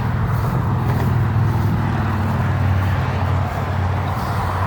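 Small petrol engine, most likely a lawn mower's, running steadily at a constant speed, its pitch dipping slightly about three seconds in.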